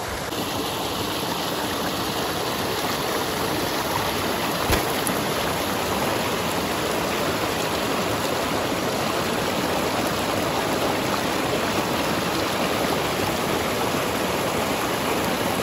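Running stream rushing steadily, with a single sharp click about five seconds in.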